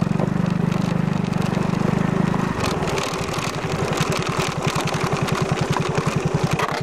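Yamaha Majesty 250 scooter's single-cylinder four-stroke engine running at low speed with a pulsing beat. About two and a half seconds in it settles to a slower, quieter beat as the throttle is eased.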